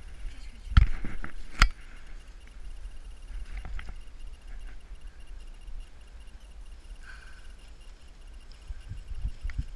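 Someone moving on foot through dense woodland undergrowth: brushing and rustling through vegetation, with a low rumble of wind and handling noise on the phone's microphone. Two sharp cracks come about a second in, and soft thumps of footsteps near the end.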